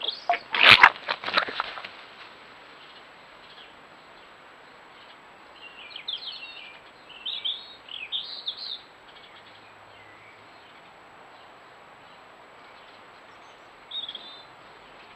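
Red fox cubs squabbling: a short burst of harsh chattering in the first two seconds, the loudest sound here. Small birds chirp in a few short phrases around the middle and once near the end.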